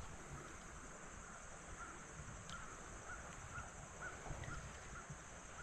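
Faint outdoor ambience: a steady high-pitched insect drone, with a soft chirp repeating about twice a second from about two seconds in.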